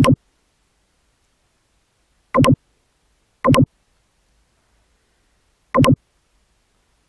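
Four short synthesizer stabs, each a quick double hit, spaced unevenly with silence between them.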